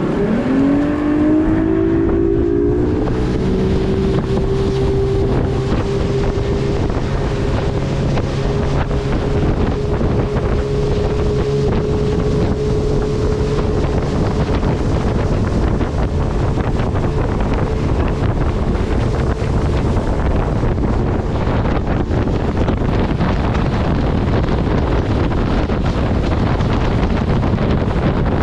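Tour boat's motor speeding up, its pitch rising over the first second or so, then running steadily at cruising speed, with wind buffeting the microphone.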